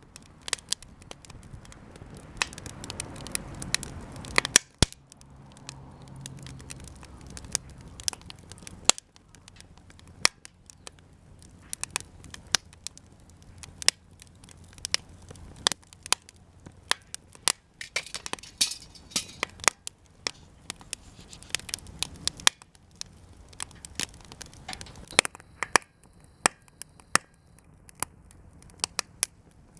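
Japanese cedar (sugi) offcuts burning in a campfire, crackling with many sharp, irregular pops over a soft hiss of flame.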